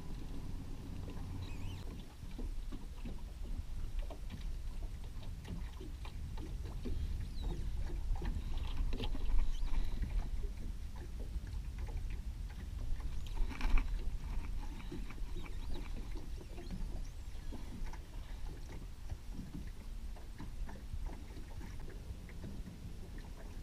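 Water lapping and splashing against a small fishing boat's hull, with a low wind rumble and scattered small knocks and clicks of gear in the boat. Two louder knocks come about nine and a half and fourteen seconds in.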